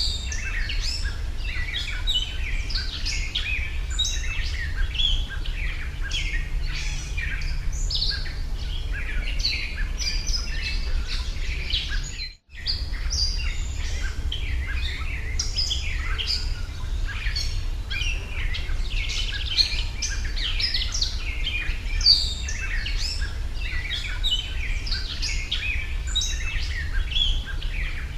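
Many small birds chirping and twittering continuously in dense, overlapping calls, over a steady low rumble. The sound cuts out for an instant about halfway through.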